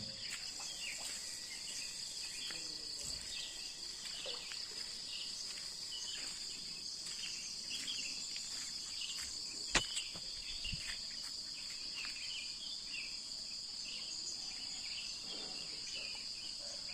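Crickets trilling steadily at a high pitch, with many short chirping calls over them and a single sharp click about ten seconds in.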